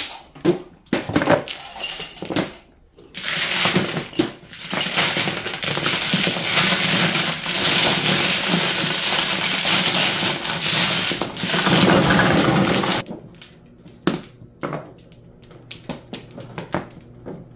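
Mahjong tiles clacking as they are pushed together into the middle of the table. From about three seconds in, a dense, continuous clatter of tiles being washed by hand across the felt, which cuts off suddenly about thirteen seconds in. After that come scattered single clicks of tiles being picked up and set down.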